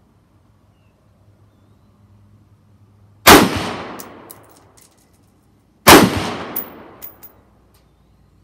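Two shots from a scoped AR-15 rifle fired from a bench rest, about two and a half seconds apart, each with a ringing tail that dies away over about a second and a half, followed by a few faint clicks.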